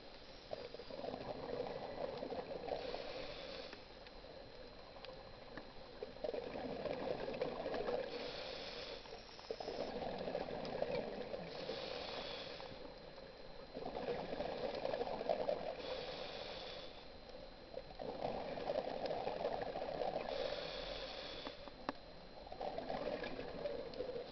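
Scuba diver breathing through a regulator underwater: a short hiss on each inhale, then a longer gurgling rush of exhaled bubbles, repeating about every four seconds.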